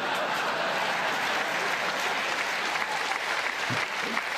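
Studio audience applauding: a steady, dense wash of clapping.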